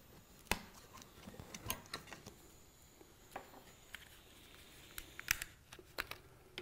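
Faint handling noises of hands working a rubber hose and small parts: scattered light clicks and taps, with a sharper click about half a second in and a cluster of clicks near the end.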